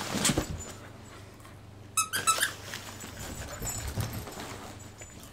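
Husky puppy giving a short high-pitched whine, three quick notes about two seconds in.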